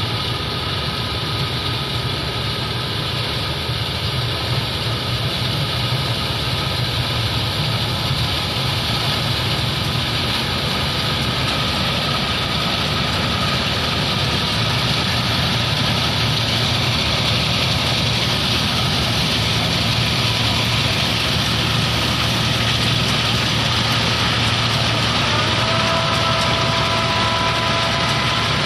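8070 combine harvester running steadily while harvesting rice: an even engine and machinery hum that grows slightly louder as the machine comes closer. A higher steady whine joins near the end.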